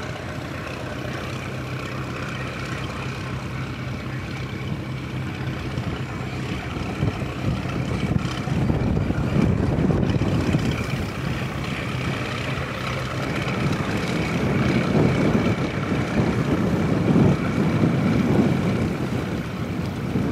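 A motor engine running steadily with a low hum, then gusts of wind buffeting the microphone from about seven seconds in, swelling and fading and growing louder.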